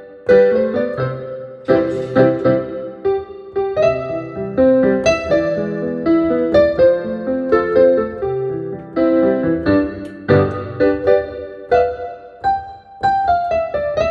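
Digital piano played with both hands: a melody of clearly struck notes over held chords, each note ringing on after it is struck.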